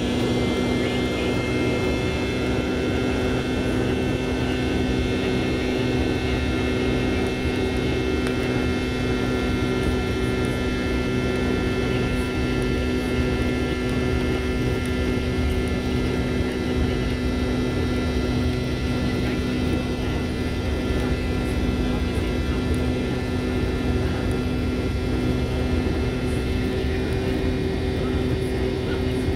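Jet airliner engines heard from inside the passenger cabin: a steady drone with a few constant humming and whining tones over it.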